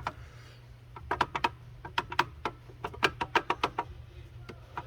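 A quick, irregular run of light clicks and taps as the parts of a 1968 Corvette gauge assembly are handled and fitted together, most of them between one and four seconds in, over a low steady hum.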